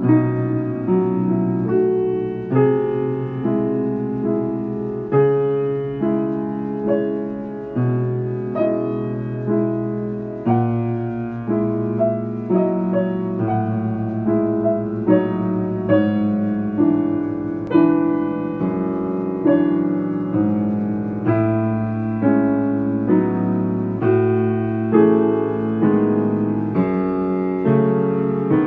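Background solo piano music, a slow, gentle piece with a note or chord struck about once a second.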